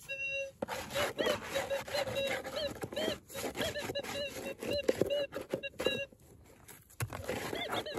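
A metal detector's search coil swept over a dig hole, sounding a string of short rising-and-falling chirps, about two or three a second, with the coil scraping on gravel and a pause about six seconds in. The warbling signal is one the prospector takes for a hot rock rather than gold.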